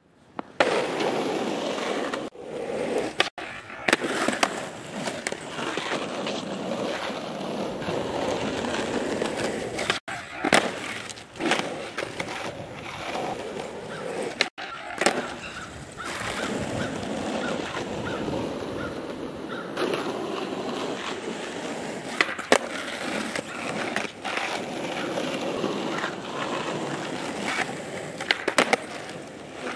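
Skateboard wheels rolling over rough, cracked asphalt, with sharp clacks now and then as the tail pops and the board lands during flatground tricks such as kickflips and shove-its.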